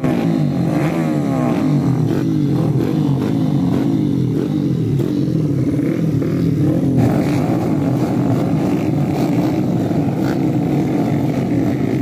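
Small single-cylinder racing motorcycle engine running, its pitch rising and falling as the throttle is blipped, settling to a steadier run after about seven seconds.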